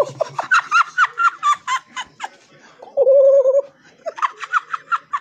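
A man vocalising a playful fanfare: fast, high, warbling runs of short sliding notes, with one held wavering note about three seconds in.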